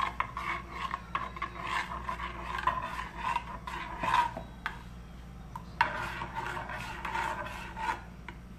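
Metal spoon stirring a starchy tapioca mixture in a saucepan, scraping against the pot in quick, uneven strokes that ease off briefly about halfway through.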